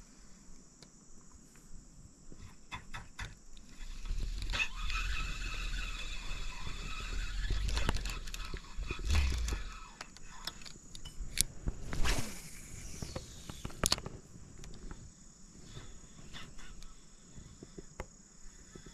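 Steady high insect drone over scattered clicks and rustles of a fishing rod and spinning reel being handled, with wind buffeting the microphone from about four to ten seconds in.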